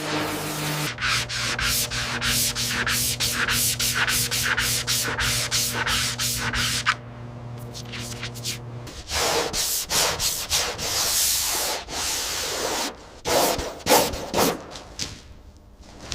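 Sanding by hand: quick, regular back-and-forth strokes, about two to three a second, giving way about halfway through to slower, uneven rubbing passes.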